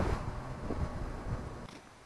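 Low, even outdoor background rumble that fades away toward the end.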